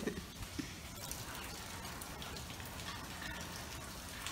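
Light rain falling: a steady, even hiss with scattered faint ticks of drops.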